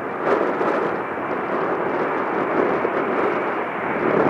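Loud, steady jet noise from an Airbus A321's CFM56 engines as the airliner rolls out just after touchdown on a wet runway.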